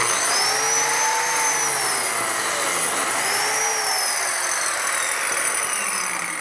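DeWalt biscuit joiner switched on and plunged into the board to cut a slot for a No. 20 biscuit. The motor starts suddenly, its pitch rises and falls twice during the cut, and near the end it begins to wind down.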